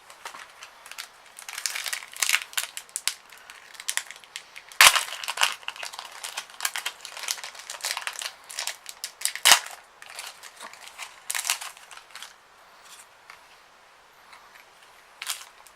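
Foil Pokémon card booster pack wrappers crinkling and being torn open by hand, with two sharp snaps, about five seconds in and again near nine and a half seconds.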